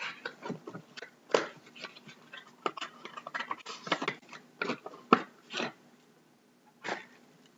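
A cardboard trading-card box being opened and emptied by hand: irregular crinkling, rustling and sharp scraping clicks of cardboard and packaging, dying away about six seconds in, with one more rustle near the end.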